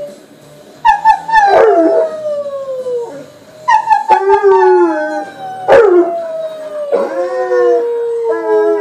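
Young male American Akita howling: a series of long howls, each sliding slowly down in pitch, beginning about a second in and repeating several times.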